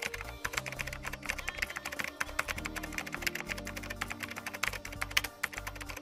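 Rapid computer-keyboard typing, many keystrokes a second, over soft background music with held notes.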